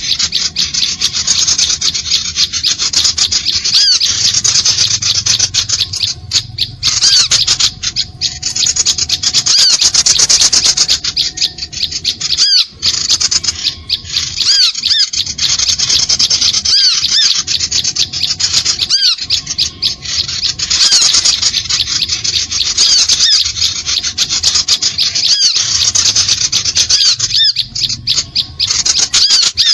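Bird-lure recording of small birds calling: a dense, continuous, high-pitched chattering of rapid repeated notes with short sweeping chirps, broken by brief pauses, played to draw small birds in.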